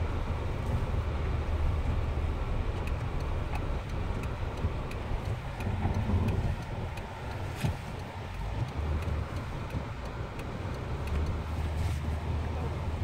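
Jeep Wrangler JK driving on snowy roads, heard from inside the cabin: a steady low rumble of engine and road noise, with faint, regularly spaced ticks.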